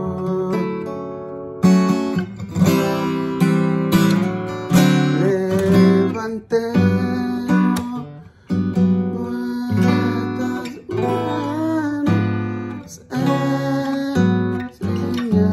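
Acoustic guitar strummed in a steady rhythm through a chord progression in the key of D, with the chords changing every second or so.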